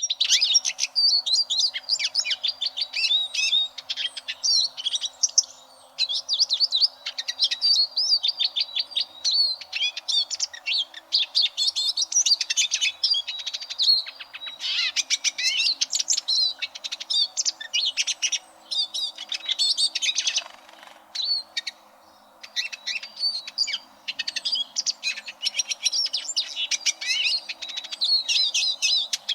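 Eurasian siskin singing: long runs of fast, high-pitched twittering and trilling notes, broken by a few short pauses.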